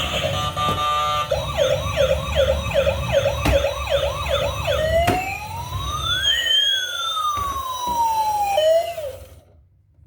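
Electronic emergency-vehicle siren: a fast yelp sweeping up and down about three times a second, then one long slow rise and fall, cutting off suddenly near the end.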